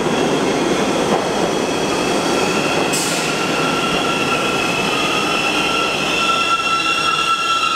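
NYC Subway R62A cars pulling into a station on curved track: wheels rumbling along the rails, then a steady, high-pitched wheel squeal sets in about three seconds in and grows louder.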